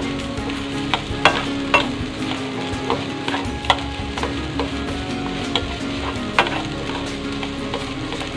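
Wooden spatula stir-frying rice in a nonstick wok: a steady sizzle with scraping and sharp knocks of the spatula against the pan every half second to a second or so.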